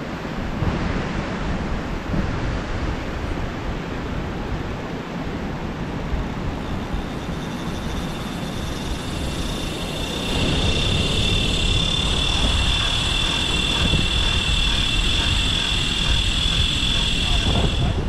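Line paying out from a spinning reel on a beach rod as a fishing drone carries the bait out, the reel giving a steady high-pitched whine that starts about seven seconds in and grows louder about three seconds later. Wind on the microphone and breaking surf run underneath.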